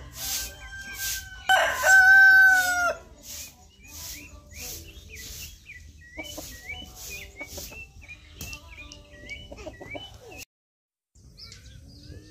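A rooster crows once, loud and drawn out with a falling end, about a second and a half in. Short bird chirps repeat later, over regular swishing strokes about twice a second.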